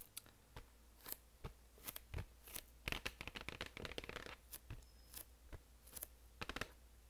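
Long acrylic nails tapping and scratching on a shrink-wrapped vinyl LP sleeve, in irregular crisp taps, some in quick clusters.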